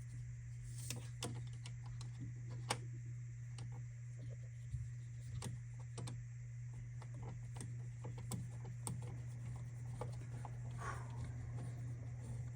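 Small, irregular clicks and ticks of the AIO pump block's mounting screws being turned and the metal hardware handled, over a steady low hum.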